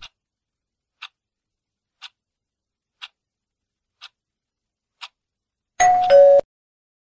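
Quiz countdown timer sound effect: a clock tick once a second, six ticks, then a short two-note falling chime about six seconds in, the loudest sound, marking the end of the countdown and the answer reveal.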